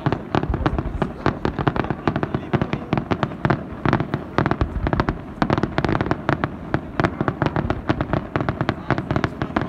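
Fireworks display: a continuous, rapid barrage of shell bursts and bangs, several a second, with no let-up.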